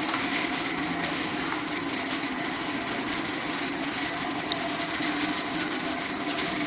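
Steady mechanical hum. A single click comes about four and a half seconds in, followed by a faint high whistle that falls slightly in pitch over the last two seconds.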